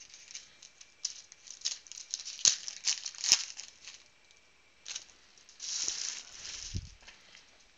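Foil trading-card pack wrappers crinkling and tearing as packs are ripped open by hand, in irregular sharp crackles. Near the end comes a denser rush of crinkling, then a single low thump.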